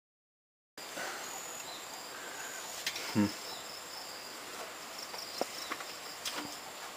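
Insects trilling steadily in garden vegetation, starting after a moment of silence. A brief voice sounds about three seconds in, and a few faint clicks are heard.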